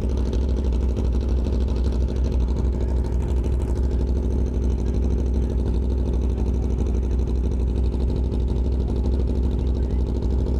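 Steady vehicle engine and road noise while under way, with a heavy low rumble throughout and no changes in pace.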